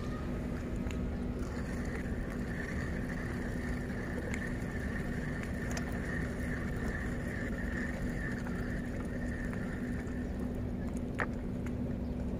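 Steady low engine drone with a constant hum, joined by a higher steady whine from shortly after the start until about two-thirds through; a single sharp click near the end.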